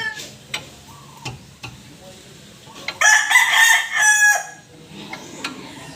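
A rooster crows once, loud, about three seconds in, with a few sharp clicks or knocks before and after.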